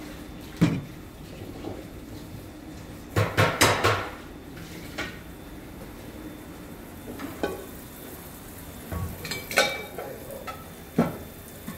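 Metal kitchen utensils clinking and knocking against pots and dishes: a few separate clatters, with the busiest run of them about three seconds in.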